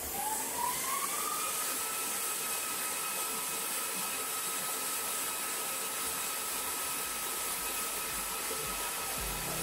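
Laser welding machine running during a weld: a motor or fan whine that rises over the first second and a half, then holds steady over a hiss.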